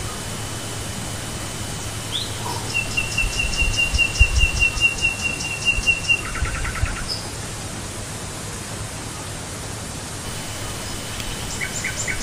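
Birdsong outdoors: one bird gives a rapid, even trill of about three seconds near the middle, with other short chirps and note series before and after it. Low thuds sound in the middle part.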